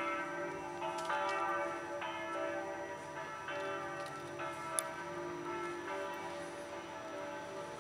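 Church bells ringing, a run of overlapping pitched strikes about one to two a second, each ringing on as the next begins. One sharp click comes about five seconds in.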